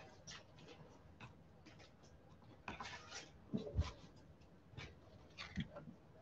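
Faint scraping and light clicks of trading cards being handled, slid against one another and picked up from a stack. A few slightly louder taps come about three to four seconds in and again near the end.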